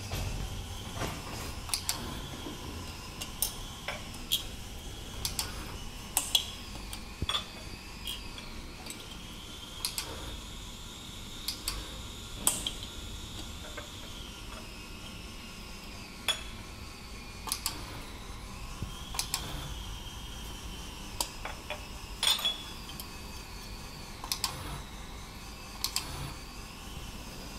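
Glass jars clinking and knocking against each other and the stainless-steel filler as they are handled under the powder filling machine's nozzle, in irregular sharp clinks about once a second or so. A faint high whine wavers slowly in pitch underneath.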